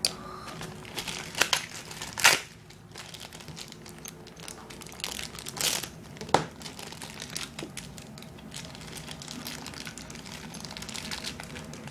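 Plastic packaging crinkling and crackling as it is handled and opened, in irregular rustles with a few sharper crackles, the loudest about two seconds in and again around six seconds in.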